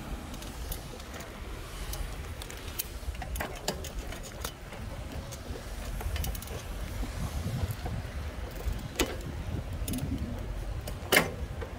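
Low, steady rumble of a small vehicle rolling slowly over asphalt, with scattered light clicks and rattles and one sharper click near the end.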